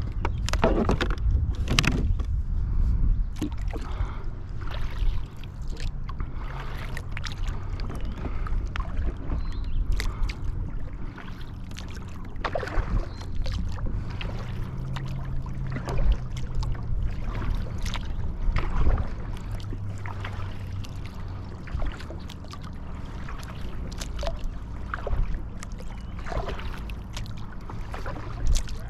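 Kayak on a lake: paddle strokes and water splashing and sloshing in irregular bursts over a steady low rumble.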